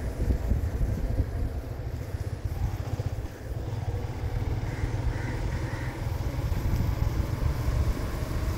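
Motorcycle riding along a road, its engine running under a steady low rumble of wind on the microphone.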